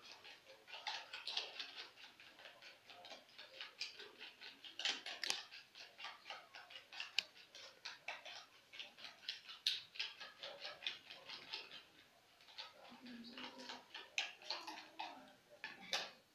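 Egg-and-sugar batter being beaten by hand in a plastic mixing bowl: a utensil ticking against the bowl rapidly and evenly, about five or six times a second, pausing briefly near the end.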